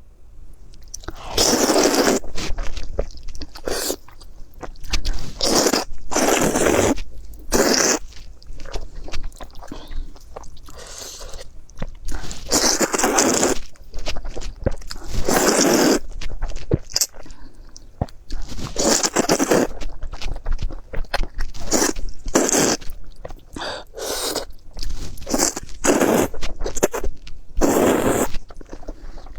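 A person biting and chewing crunchy food close to the microphone, with loud crunches coming irregularly every second or two.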